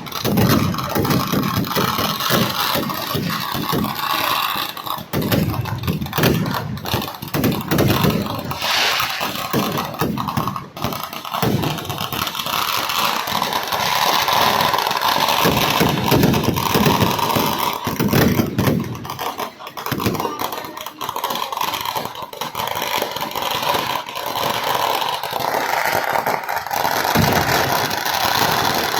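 Kerala vedikettu fireworks: a dense, unbroken barrage of firecracker bangs and cracks running together into a continuous rumble, easing briefly a few times.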